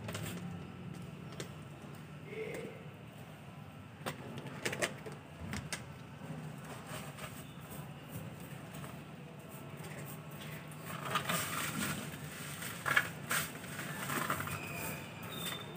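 Hand brush sweeping spilled cat-litter granules and droppings into a plastic dustpan on a hard floor: short scratchy strokes and light clicks and taps, in irregular bursts that come thickest in the last few seconds.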